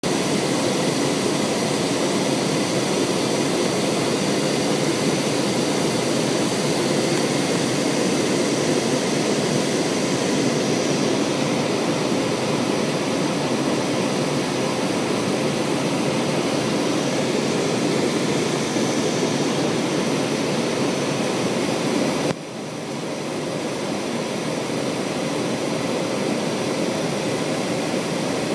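Cabin noise of a Learjet on approach: its rear-mounted turbofan engines and the airflow make a steady rush with a few faint steady whining tones in it. About 22 seconds in the level drops suddenly, then builds back gradually.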